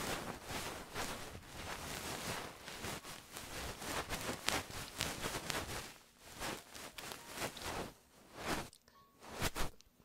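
Fast scratching and knocking of ASMR ear-massage tools on the microphone: dense and continuous for about six seconds, then slower, separate knocks with short gaps between them.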